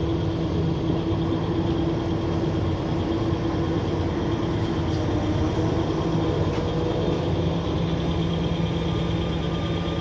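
Diesel engine of a Terex 1604ZW road-rail excavator running steadily as the machine rolls slowly along the track close by.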